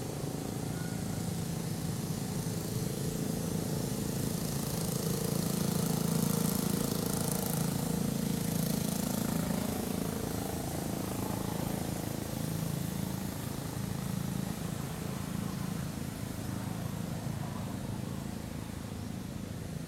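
A steady, low engine hum, swelling to its loudest about six seconds in and then slowly fading.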